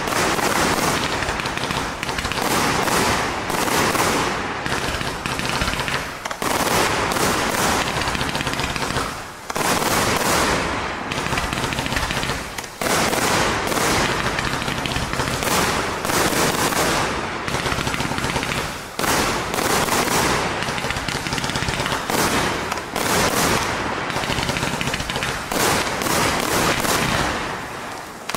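A 100-shot, 1.2-inch fireworks cake firing shot after shot: a dense, continuous run of launch reports and bursts with crackling from its crackling chrysanthemum mine effects, easing briefly a few times before picking up again.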